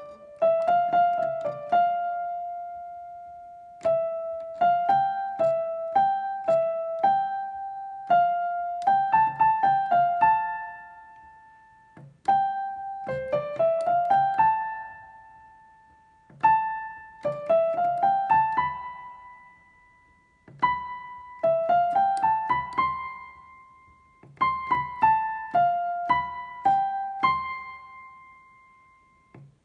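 Piano-voiced keyboard playing a simple children's-song melody in single notes over light low accompaniment notes. The tune moves in short phrases about four seconds long, each ending on a held note that fades away.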